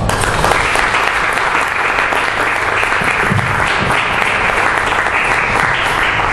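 Audience applauding after a live performance: dense, steady clapping that breaks out suddenly.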